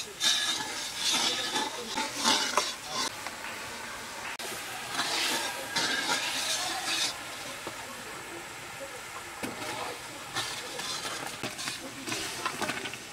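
A metal slotted spatula stirring and scraping in a steaming aluminium pan of vegetable curry, with the food sizzling. The stirring is busiest in the first few seconds and again around the middle, then eases off.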